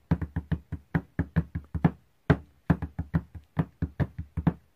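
Fingers tapping a five-layer polyrhythm, 2 against 3 against 4 against 5 against 6, on a desk covered with paper. A dense, uneven string of sharp taps whose pattern repeats, with a brief gap about two seconds in.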